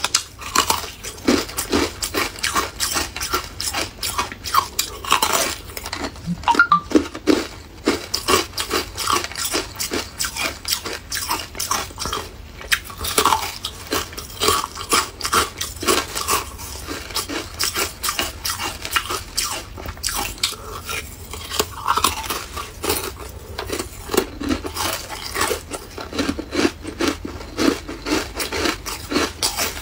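Ice dusted with matcha powder being bitten and chewed: continuous rapid crunching, many short cracks close together.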